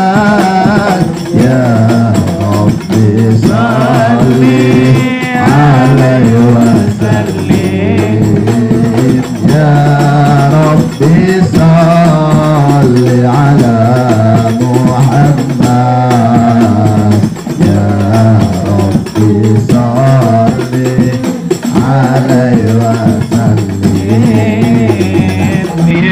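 Sholawat: Islamic devotional singing led by a singer on a microphone, with a group beating hadrah frame drums (rebana) along with him. The singing and drumming run on without a break.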